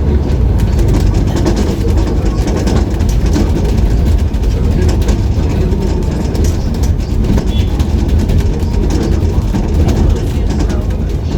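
Steady low rumble of a moving tour bus and the city traffic around it, continuous without pauses.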